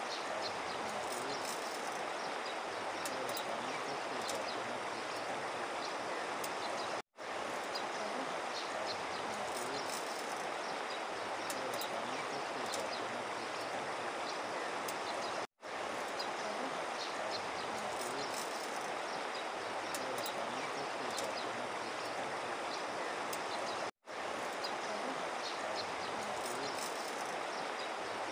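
Shallow river rushing steadily over gravel, an even watery hiss broken by short dropouts to silence about every eight seconds.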